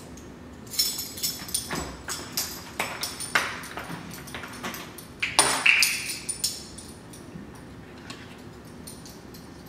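A ring of metal measuring spoons clinking and jangling as they are handled against a plastic oil bottle: a run of sharp metallic clicks, the loudest a little over five seconds in, then stillness.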